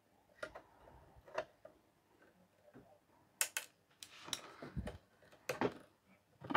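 Big adjustable pliers twisting a tight plastic lamp fitting on its thread, giving sharp clicks and short creaks. The clicks are sparse at first, then come in a quicker run with brief scrapes in the second half. The fitting is slowly undoing but very tight on the thread, which is typical of glue having been put on it.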